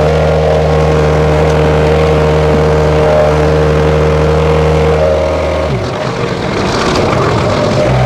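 Case 1845C skid steer's diesel engine running steadily. About six seconds in its steady note drops away and the level dips, then the note comes back near the end.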